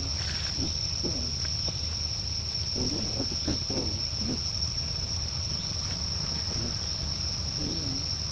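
Insects droning steadily at one high pitch throughout, with a few short, faint, low calls now and then over a low rumble.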